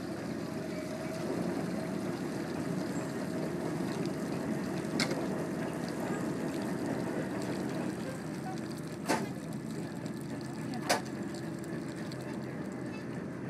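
Ship's deck winch running steadily while it hoists a loaded pallet out of the water. There is a light click about five seconds in and two sharp metallic clanks about nine and eleven seconds in.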